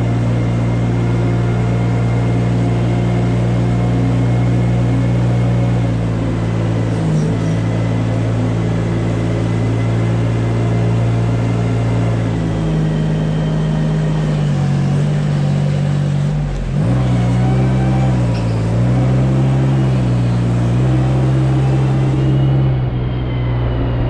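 Compact farm loader's engine running steadily as the loader pushes manure with its scraper blade. Its pitch dips and recovers several times in the second half as the engine takes up the load.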